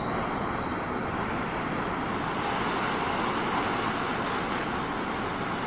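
Hand-held MAPP gas torch flame hissing steadily while it heats a car body's factory lead seam to melt the lead out.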